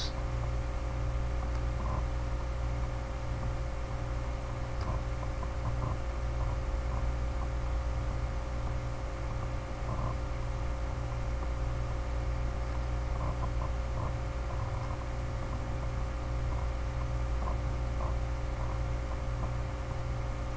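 Steady electrical hum and hiss of the recording setup, with several steady tones running through it and faint clicks scattered now and then.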